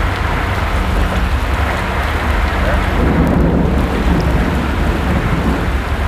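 Heavy rain and gale-force wind in a violent thunderstorm, with a roll of thunder rumbling about three seconds in.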